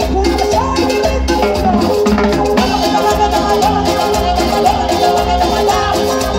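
Live cumbia band playing with a horn section of saxophone, trumpet and trombone over a steady bass and percussion beat.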